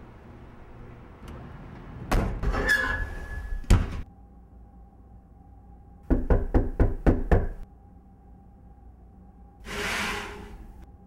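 A quick run of about six knocks on a door, around the middle. Earlier comes a louder, noisy clatter lasting about two seconds, and near the end a brief rushing hiss.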